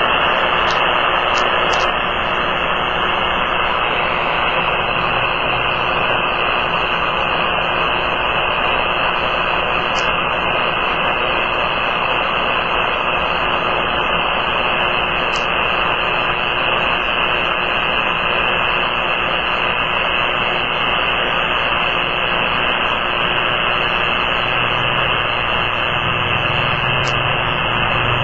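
Powerline radio-frequency interference heard through a Kenwood TS-480 transceiver's speaker in AM mode on the 80-meter band: a loud, steady rough noise that fills the receiver's audio and stays the same as the dial is tuned across the band. A low tone comes up under it near the end.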